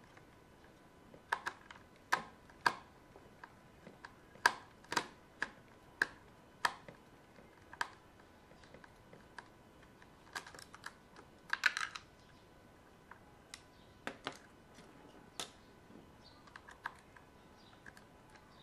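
Irregular small clicks and taps of a screwdriver and hard plastic parts as screws are taken out of a steam iron's plastic handle housing. The sharpest clicks come in the first half, with a quick cluster a little before midway.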